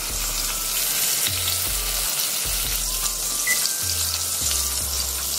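Flour-coated mushrooms shallow-frying in hot oil in a stainless steel skillet: a steady sizzle with fine crackling.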